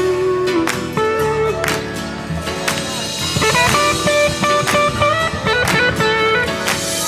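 Background music: a guitar tune over a steady beat, with a hit about once a second.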